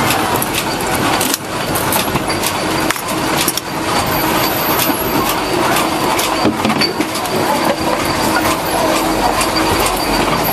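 Workshop machinery running: a loud, continuous mechanical clatter of irregular clicks and knocks over a steady hum.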